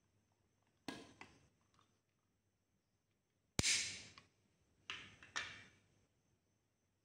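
Orange plastic casing of a digital multimeter being pried apart by hand: four sharp plastic clicks and snaps, the loudest about three and a half seconds in as the back cover comes loose.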